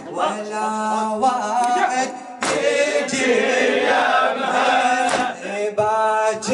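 A male reciter chanting a Shia mourning elegy (latmiya) into a microphone, without instruments, holding a long note early on. Partway through, a group of men's voices joins in chorus.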